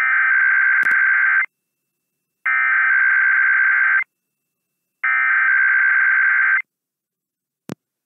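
Emergency Alert System SAME header: three identical bursts of warbling digital data tones, each about one and a half seconds long and a second apart, encoding a Required Weekly Test as broadcast over AM radio. A short click comes near the end.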